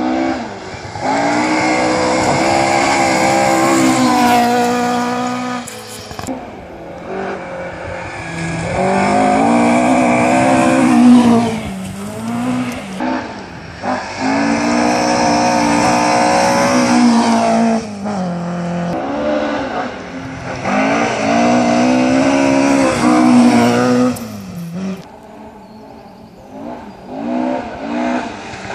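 Historic rally car engine at full throttle on a gravel forest stage, its revs climbing and then dropping back several times through gear changes and lifts, in loud surges about every five to six seconds with a quieter dip near the end.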